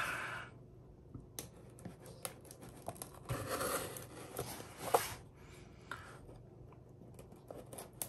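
Knockoff Benchmade folding pocket knife cutting the packing tape on a cardboard shipping box: a few short scraping cuts about halfway through, among light clicks and the rustle of the box being handled.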